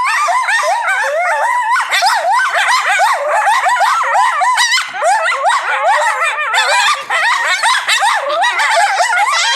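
A group of coyotes howling and yipping together in a chorus, many high, wavering calls overlapping and rising and falling in pitch without a break.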